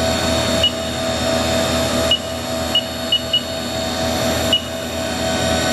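Haas Mini Mill CNC spindle running steadily at 5000 RPM, giving a steady whine made of several pitches. Several short, high beeps sound over it.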